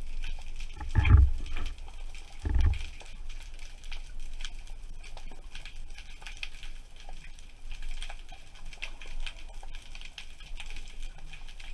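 Underwater ambience of a rocky reef: a steady fine crackling of many small clicks, with two short low rumbles about one and two and a half seconds in.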